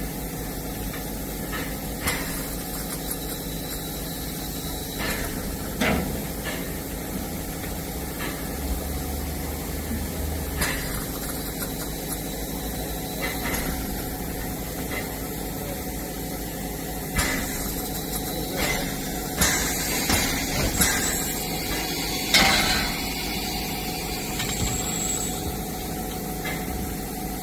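Standing narrow-gauge steam locomotive 99 7241-5 hissing steadily as it simmers, with scattered sharp metallic knocks and clanks from crew working on the engine.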